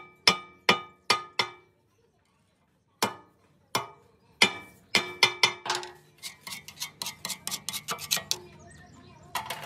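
Hammer blows on steel, each strike ringing with a metallic tone: five quick blows, a pause, then a few slower blows and a run of quicker, lighter taps.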